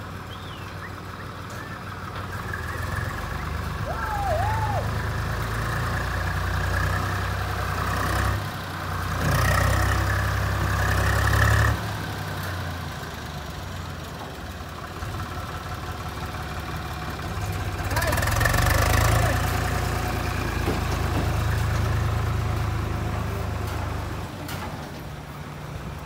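Diesel engine of a farm tractor pulling a loaded trailer past at close range, running steadily and growing louder twice, about a third of the way in and again past the middle, before easing off near the end.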